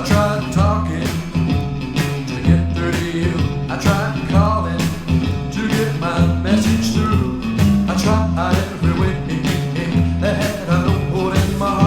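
Rock band playing an instrumental passage: guitar phrases over a bass line and a steady drum beat.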